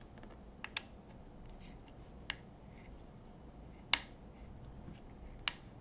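A handful of short, sharp clicks, spread out and the loudest about four seconds in, from a 3 mm Allen key working a screw and a small metal bracket being handled as the bracket is tightened down.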